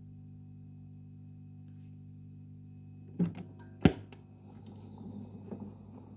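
Record player humming steadily as it is readied to play a 78 rpm shellac disc, with two sharp knocks a little over three seconds in from handling the machine as the turntable is set going, then faint scraping and rumbling.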